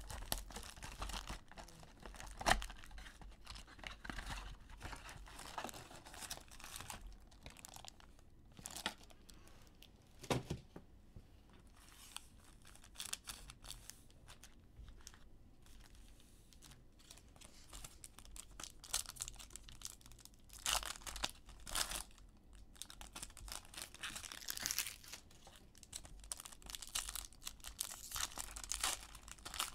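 Plastic shrink-wrap crinkling as it is pulled off a box of trading cards, then card packs handled and foil pack wrappers torn open. Sharp rustles and clicks come and go, with a quieter stretch in the middle and busier rustling and tearing toward the end.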